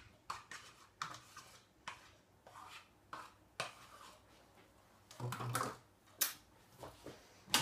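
A spoon scraping low-fat quark out of a plastic tub and tapping against the tub and the food processor's mixing bowl: irregular light clicks and taps, with a fuller knock a little after five seconds in.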